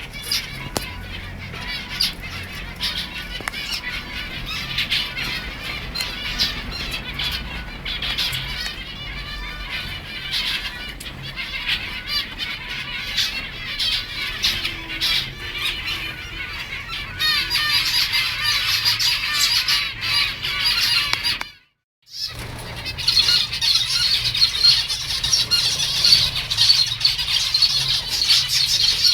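A flock of zebra finches chattering, many small birds calling over one another with short nasal beeps. The sound cuts out for a moment about three quarters of the way through, then the chatter comes back louder and denser.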